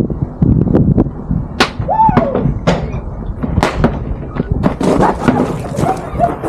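Wind buffeting the microphone, with several sharp knocks or slams and a few short vocal exclamations.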